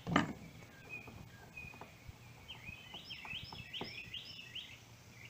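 A sharp click near the start, then a few faint taps, as the small parts of a Coleman stove's pump plunger are handled. A bird chirps a quick run of calls in the background from about halfway through.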